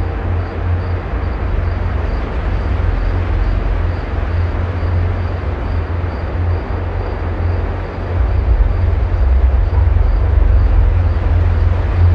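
Dark ambient drone: a deep, steady low rumble under a wash of hiss, with a faint high ticking pulse about twice a second. It swells louder about eight seconds in.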